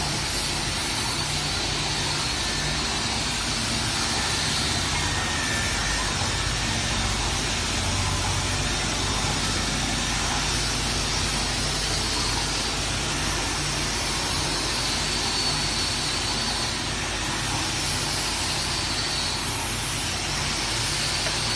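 Single-side veneer beveling machine running steadily: a constant hum and hiss from its motors and grinding heads, with a faint high tone over it.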